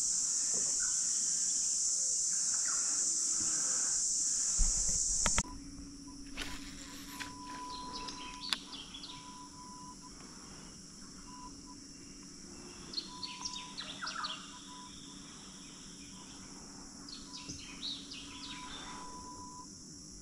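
Steady high insect drone, which cuts off abruptly about five seconds in after a couple of knocks. A quieter bush chorus follows: insects, a low steady hum, a repeated short piping note, and three bursts of bird calls.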